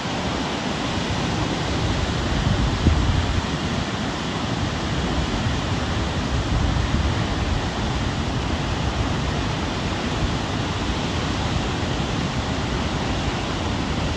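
Steady rushing of a large waterfall in heavy flow, a dense even noise that does not let up. A brief low thump stands out about three seconds in.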